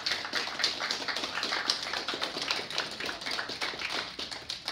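Small audience applauding with many irregular hand claps, fading out near the end.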